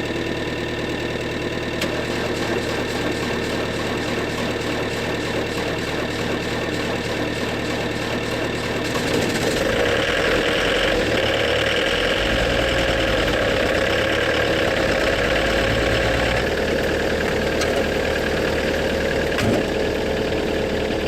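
Van engine idling steadily in the cold, its pitch and low hum shifting about nine seconds in and again about sixteen seconds in.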